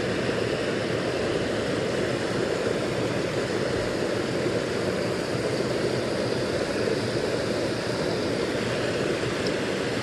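Small creek pouring over a low cascade: a steady rush of water.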